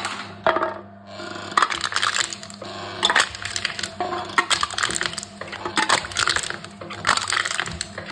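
Aluminium drink cans being crushed one after another by a can-crushing machine: crinkling, cracking metal in repeated bursts about every one and a half seconds, over a steady low hum.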